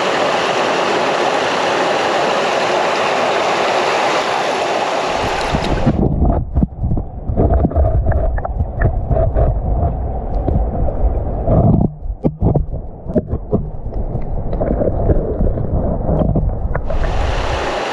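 Mountain trout stream rushing over rocks. About six seconds in, the sound is heard from under the water: the hiss cuts off, leaving muffled low gurgling and knocking of moving water. The stream's full rush returns near the end.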